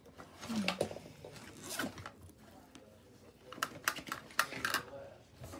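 A few short, sharp clicks and knocks of objects being handled: one cluster about half a second in, another near two seconds, and a quick run from about three and a half to five seconds. A brief vocal sound comes with the first cluster.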